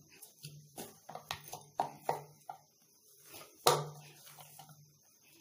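Soft whole-wheat chapati dough being kneaded by hand in a plastic bowl: irregular squishes and soft slaps of dough against the bowl, with one louder slap about two-thirds of the way through.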